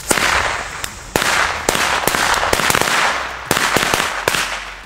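Firecracker chain with a fuse going off on the ground: an irregular run of sharp bangs and pops over a continuous hiss, with several louder reports through it.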